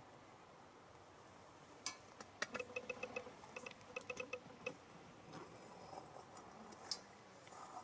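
Steel stirring rod knocking and scraping against the crucible in a melting furnace. A sharp click about two seconds in is followed by a quick run of light metallic clicks with a faint ring for a couple of seconds, then one more sharp click near the end.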